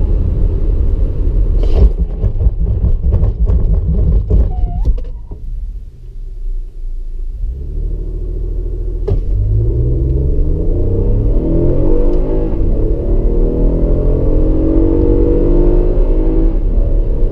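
Toyota Kluger's 3.5-litre V6 petrol engine, heard from inside the cabin, runs down to a quieter idle with a few sharp clicks, then about nine seconds in goes to full throttle from a standstill. The engine note climbs and drops back at each automatic upshift, growing louder toward the end.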